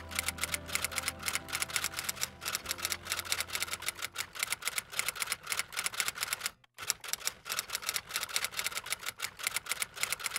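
Typewriter keystrokes as a sound effect: rapid clacking, several strikes a second, with one brief break about six and a half seconds in. A low held note from the background music fades out in the first few seconds.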